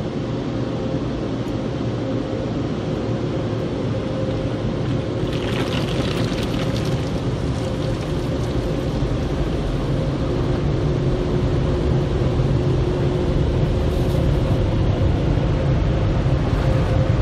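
Autec automatic car wash machinery heard from inside the car as a steady rumble with a faint hum. About five seconds in, liquid sprays across the windshield with a hiss for a few seconds.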